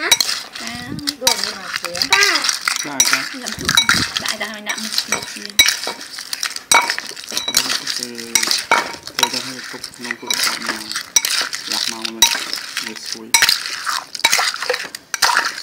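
A metal spoon scraping and clinking against a ceramic bowl as it tosses pickled crabs with basil, chili and garlic, in a quick, irregular run of clicks and scrapes.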